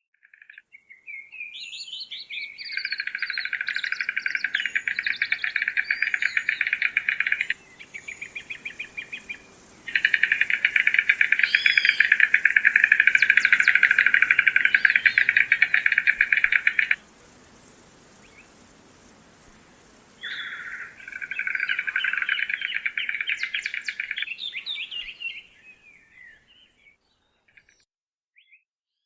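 Bird calling in long bouts of very rapid rattling pulses, three bouts with short pauses between, some short rising and falling notes at their edges.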